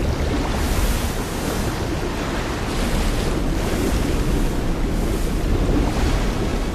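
Film sound effect of a huge mass of water rushing and crashing: a dense, loud wash that swells in repeated surges about once a second.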